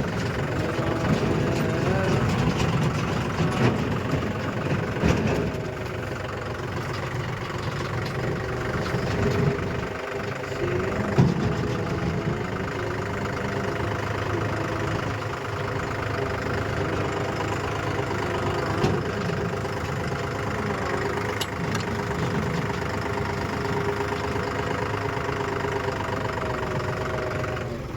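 Heavy vehicle engine running steadily near idle, its pitch wavering a little in the first few seconds, with a few brief louder knocks in the first dozen seconds.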